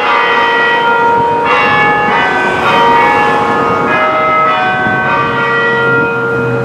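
Newly restored tower bells ringing, several bells struck in turn, each ringing on and overlapping the next.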